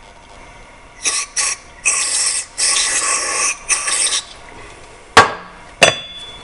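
Aerosol carburetor cleaner sprayed through its thin extension straw into a lawn mower carburetor's jet, in about five short hisses over three seconds, forcing cleaner through the idling circuit to clear a clog. Near the end come two sharp knocks, the loudest sounds.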